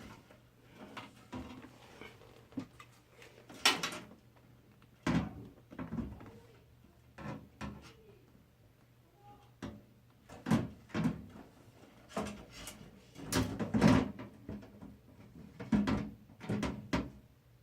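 Irregular knocks, clicks and light rattles of computer hardware being handled, with a motherboard and case parts shifted and set down while the board is tried in the case. About a dozen separate knocks, the sharpest around four seconds in and near fourteen seconds.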